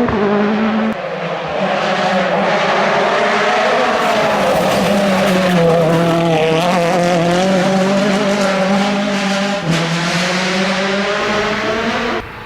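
Turbocharged WRC rally car engine running hard at high revs, its pitch held fairly steady with brief dips about a second in and near ten seconds. The sound cuts off suddenly just before the end.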